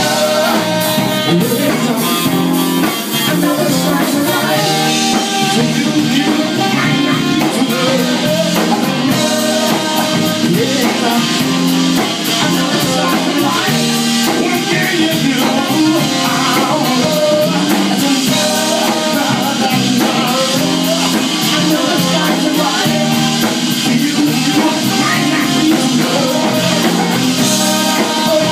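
Live blues band playing: a tenor saxophone solo over electric bass, guitar and drum kit.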